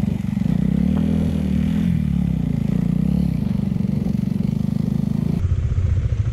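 Motorcycle engine running at low revs, its pitch rising and falling a little. About five seconds in, the sound changes abruptly to a different, lower engine note.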